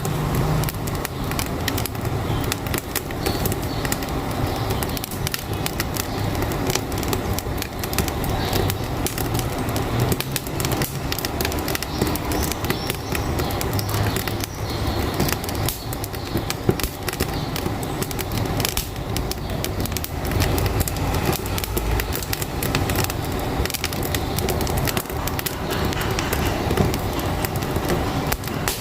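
Wood fire crackling in a wood-burning stove, with many sharp snaps over a steady low rumble of a truck engine.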